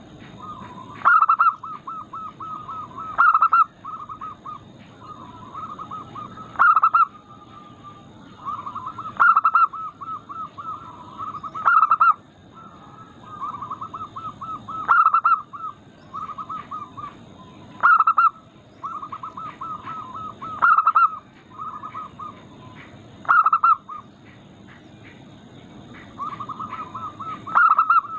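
Zebra doves (perkutut) cooing: phrase after phrase of quick stuttering coos, each ending in a louder note, about every two to three seconds. The phrases come back to back, and some overlap.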